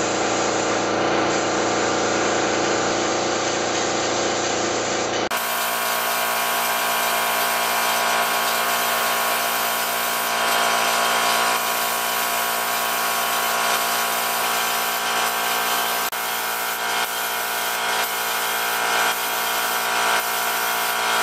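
An electric power tool's motor running steadily, with a constant whir, through a cut about five seconds in.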